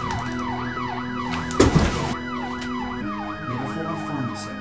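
A siren-like wailing tone sweeping down and up about twice a second over sustained background music chords. A loud sudden burst of noise cuts through about one and a half seconds in.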